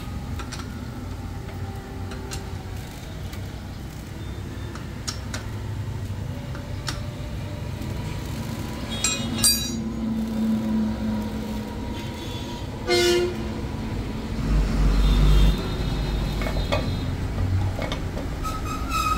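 Steady rumble of road traffic, with a short vehicle horn toot about 13 seconds in and a louder low engine rumble just after it. Scattered light metallic clicks come from hand tools on the motorcycle's clutch bolts.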